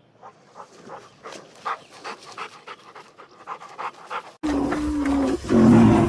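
Pheasants giving a quick series of short calls, then after an abrupt cut about four seconds in, a rhinoceros calling: one held steady-pitched call, then a louder call near the end.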